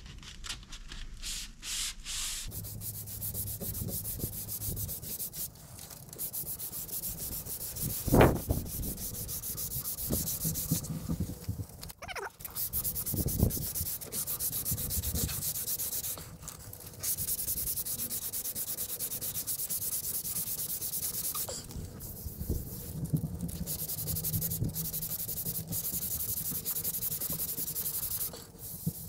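Hand block-sanding a guide-coated painted body panel on a 1952 VW barn door bus. Sandpaper makes a scratchy hiss, in quick short strokes at first and then longer steady passes with brief pauses. A single thump about eight seconds in is the loudest sound.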